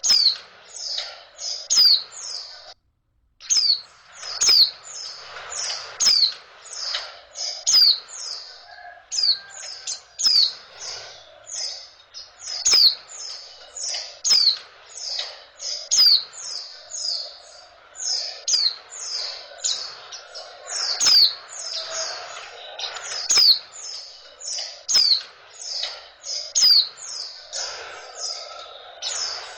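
Female white-eye (pleci) calling: a fast run of short, sharp chirps, each sliding down in pitch, about three a second, with a brief gap about three seconds in. It is the call used to bring male white-eyes into breeding condition and set them singing.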